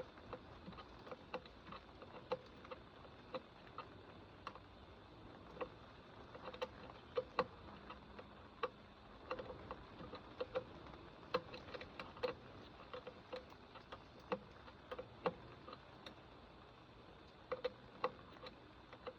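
Irregular light metallic clicks and taps of hand tools working on metal parts and fasteners, sometimes several a second, with pauses between.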